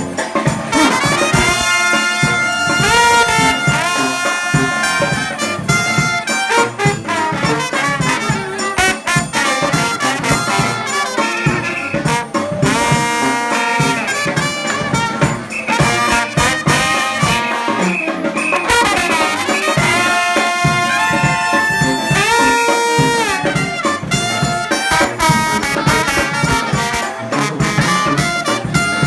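New Orleans brass band playing an instrumental stretch: trumpets, trombones and saxophone over a steady drum beat, with notes that slide up and down.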